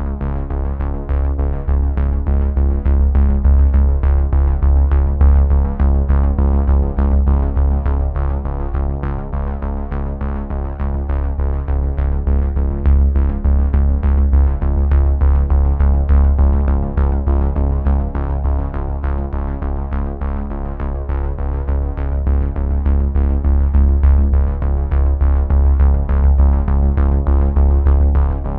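Electronic background music: synthesizer chords over a steady drum-machine beat with heavy bass.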